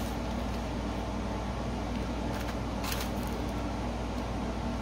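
Steady low hum of room noise, with two faint short rustles of plastic-sleeved nail sticker sheets being handled about halfway through.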